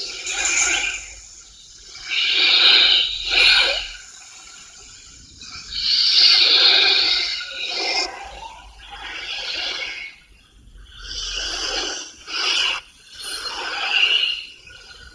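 Giant anaconda creature sound effects: a string of breathy hisses and snorts, each from a fraction of a second to about two seconds long, with short pauses between them.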